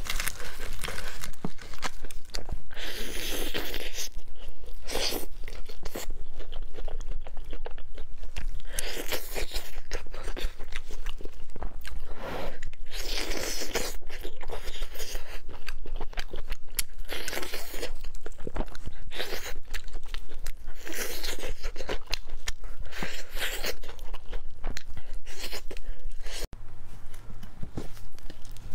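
Close-miked crunching and chewing of crispy battered fried chicken, with repeated loud crackling bites every second or two. Near the end it drops to quieter chewing over a low hum.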